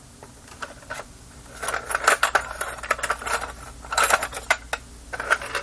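Small metal hand tools clattering and clinking together as they are rummaged through, in three short bursts of rapid clicks.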